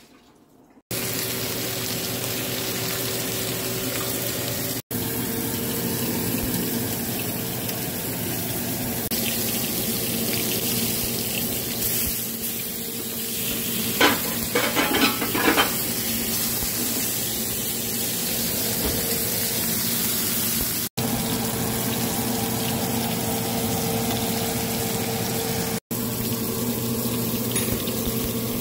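Steaks sizzling in an oiled grill pan: a steady hiss with a low hum beneath it. A short run of knocks near the middle.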